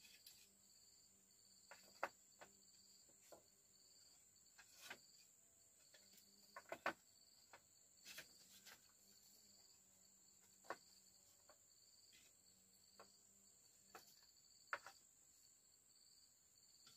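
Crickets chirring steadily at a high pitch, with a second insect pulsing underneath. Scattered sharp knocks and clicks break in every second or so, loudest about two seconds in, near the middle and near the end.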